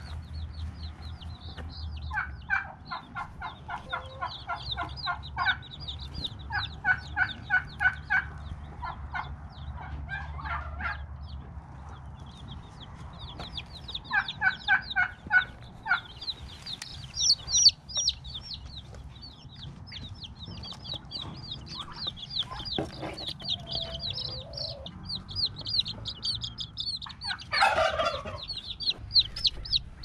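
Barred Rock and Light Brahma chicks peeping, a fast, unbroken run of short high chirps that grows louder in the second half. In the first half, several bursts of quick clucking from an adult chicken join in.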